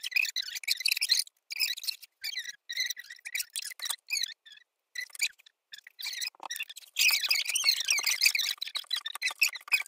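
Young women's high-pitched laughter and squeals, choppy with short gaps, louder and more continuous over the last few seconds.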